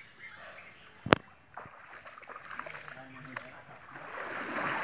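Water sloshing and splashing in a shallow stream, growing louder near the end. A single sharp click about a second in is the loudest sound.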